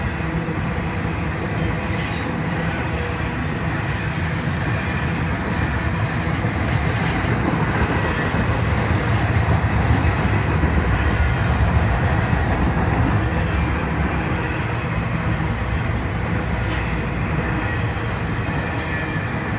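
Florida East Coast intermodal freight train's flatcars carrying highway trailers rolling past, a steady rumble and rattle of wheels on the rails that grows a little louder midway and then eases.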